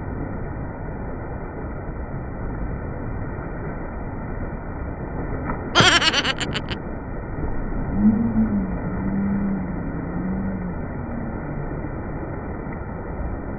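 Steady rush of a waterfall, with a short sharp burst of several quick strokes about six seconds in and a wavering, low voice-like call from about eight to eleven seconds.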